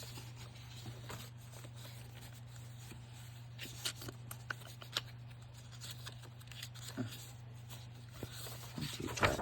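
Sheets of paper being handled and folded by hand: scattered soft rustles and light taps, a few clustered a few seconds in and near the end, over a steady low hum.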